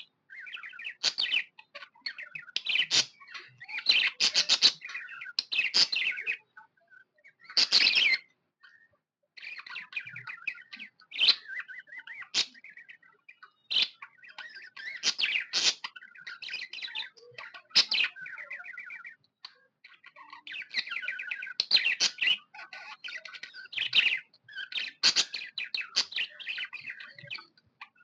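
Budgerigar (budgie) chirping and chattering in quick bursts of chirps and warbles, with short pauses: the happy chirping of a pet budgie.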